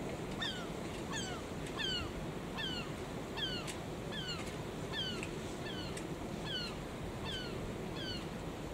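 A bird calling over and over, about a dozen short, falling calls, roughly one and a half a second, over a steady rush of wind and sea.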